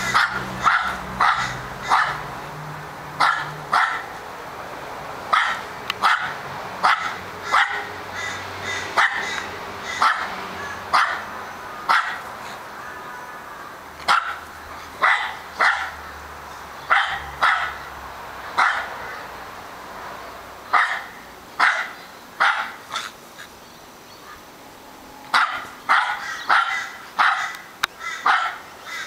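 Australian Terrier barking over and over, sharp high-pitched barks about once or twice a second in bouts, with short lulls between them.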